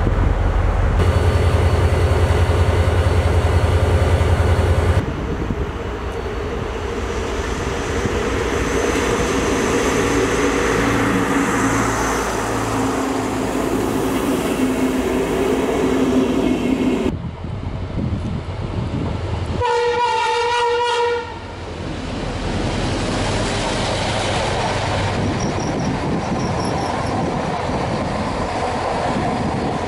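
Passenger trains running past on the track, the sound changing abruptly several times. About two-thirds of the way in, a train horn sounds once for about a second and a half.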